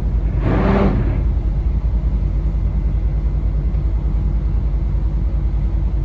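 Yacht's engine running with a steady low rumble and an even beat. A short pitched, voice-like sound comes in the first second.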